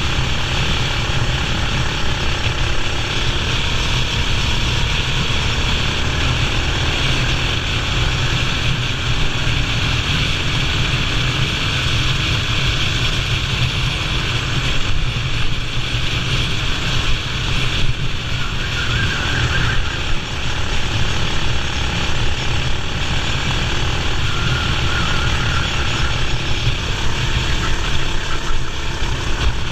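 Racing kart's two-stroke engine running hard on track, with strong wind rumble on the microphone.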